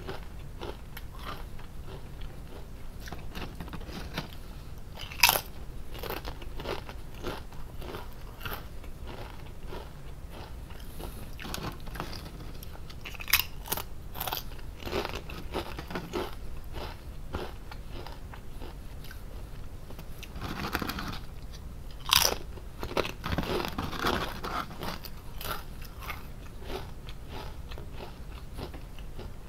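Lay's potato chips being bitten and chewed close to the microphone: a steady run of small crisp crunches, with a few sharper, louder bites standing out about 5, 13 and 22 seconds in.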